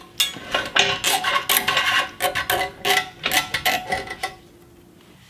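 Nylon zip ties being pulled tight: a run of irregular ratcheting clicks and rattles that stops about four seconds in.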